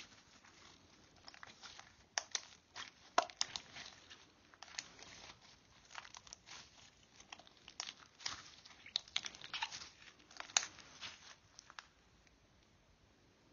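Green glitter slime being squeezed and stretched by hand, making a run of sticky clicks and small pops that die away near the end.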